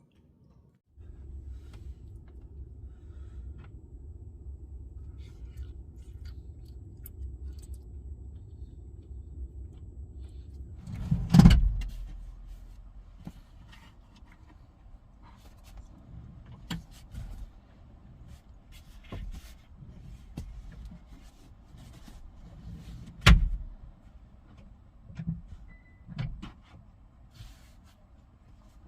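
A low steady rumble for about ten seconds, then a heavy thump, scattered light knocks, and a second heavy thump about twelve seconds later, like car doors being shut.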